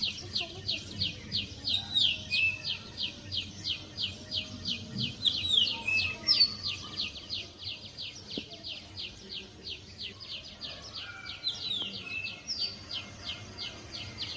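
Birds chirping: a steady, rapid run of short, high chirps, about three or four a second, with a longer call now and then.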